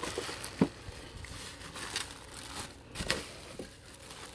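Bubble wrap and plastic packing crinkling and rustling as handfuls are pulled out of a cardboard shipping box, with a couple of sharper crackles about half a second and three seconds in.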